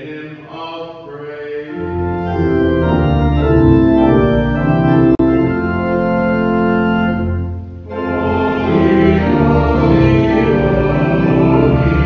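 Church organ playing sustained chords with a strong bass, coming in about two seconds in as a chanted voice finishes. The chords break off briefly near eight seconds, then go on.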